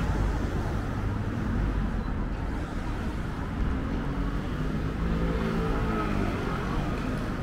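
City street ambience: a steady rumble and hum of passing car traffic, with a pitched engine-like hum swelling briefly around the middle.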